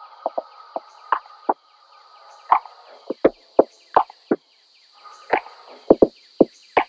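A series of irregular sharp clicks and knocks, some close together in pairs, over a faint steady high whine.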